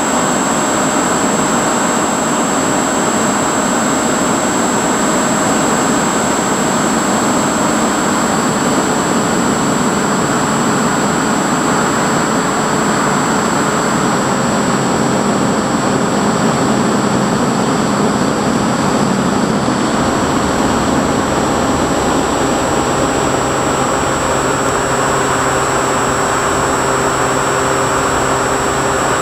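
Bixler 2 foam model plane's electric motor and pusher propeller running steadily in flight, heard from on board with a dense wind rush over the camera microphone. The motor's thin whine shifts slightly in pitch a few times.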